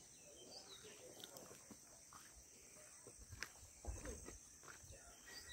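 Near silence: faint outdoor ambience with a few soft ticks and low thumps.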